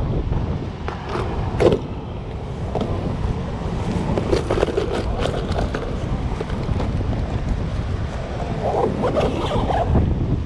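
Wind rumbling on the microphone, with short clicks and rustles of clear plastic tackle boxes being packed into a fabric tackle bag, a busier patch of handling near the end.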